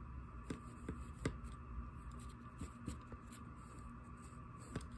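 Faint taps and scrapes of a small fork pressing into a toy pancake and against its plate: a handful of light clicks at uneven intervals over a low, steady room hum.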